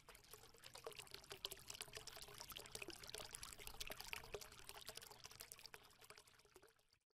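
Faint crackling, trickling noise made of many tiny clicks, like liquid being poured, swelling and then fading out.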